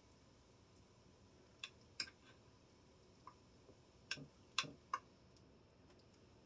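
Near silence broken by a handful of short, sharp clicks and taps, a few around two seconds in and a louder group between four and five seconds in, as a glass baking dish is handled with gloved hands.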